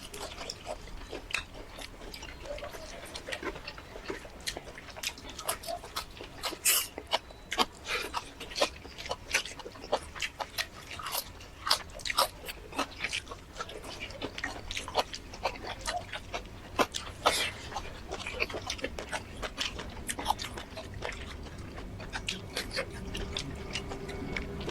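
Close-miked chewing and biting of a meal of chili shrimp and rice: many short, irregular mouth clicks and smacks, several a second, with a few louder ones.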